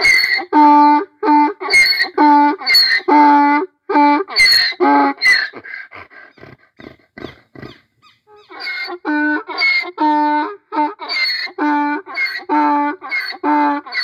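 Donkey braying: a long run of loud rhythmic cries, about two a second, alternating between a higher wheezy stroke and a lower pitched one. About six seconds in the braying dies to faint short sounds for some two seconds, then starts up again.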